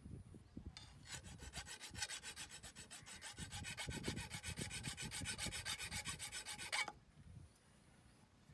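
Iron crowbar tip being scraped back and forth to sharpen it: a fast, even rasping of about six strokes a second that starts about a second in and stops suddenly near the end.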